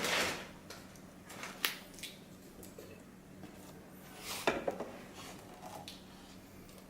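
Hands handling a car head unit and its plastic cable connectors: a scrape at the start, a click about a second and a half in, and a sharper knock with a short clatter about four and a half seconds in, over a faint steady hum.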